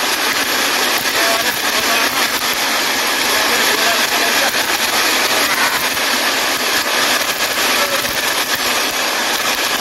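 Steady rush of a shallow river flowing over rocks, with splashing from tilapia thrashing in a cast net as it is dragged through the water.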